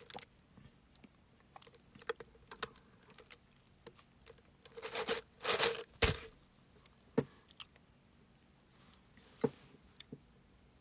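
Quiet handling noises from a clear plastic drink cup with a straw: scattered small clicks and taps, with a denser run of clicking and rustling about five seconds in.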